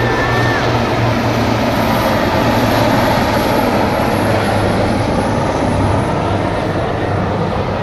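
Two military helicopters flying low overhead, a steady loud wash of rotor and engine noise with a constant low hum.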